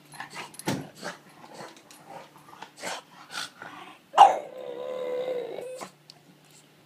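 French bulldog puppy vocalizing in greeting: a string of short, sharp sounds, then about four seconds in a loud, long howling growl held at a steady pitch for nearly two seconds.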